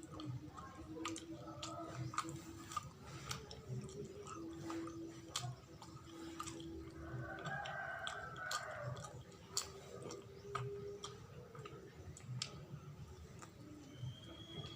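Close chewing of sticky glutinous-rice-and-coconut sweet (sawella), with irregular wet mouth clicks and smacks.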